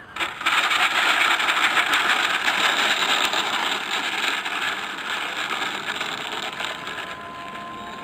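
RC Piper Cherokee model airplane rolling on the runway with its motor running and its wheels rattling. The noise starts suddenly about half a second in, then slowly fades.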